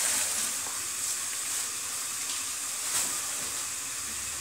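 Vegetables frying in a lidded pan on a gas stove: a steady sizzle with a few faint pops.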